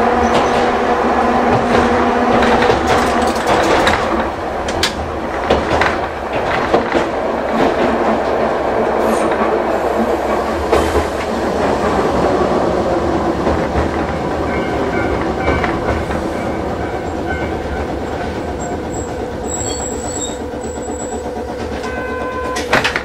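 Hankai Tramway Mo161-type tram running, heard from inside the car. Its nose-suspended traction motors and gears give a steady whine, and the wheels click over rail joints. The running sound eases and grows quieter over the second half.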